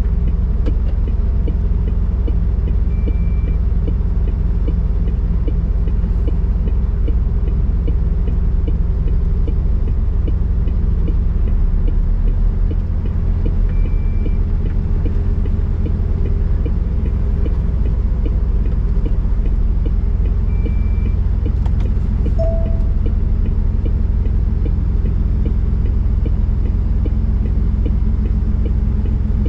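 Cab sound of a MAN truck's diesel engine running low and steady as the lorry reverses slowly. A short high beep sounds three times over it.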